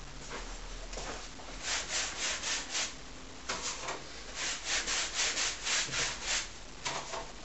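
A hand-held painting tool scrubbing paint onto a large stretched canvas in quick back-and-forth strokes, about four a second. The strokes come in two runs with a short pause about three seconds in.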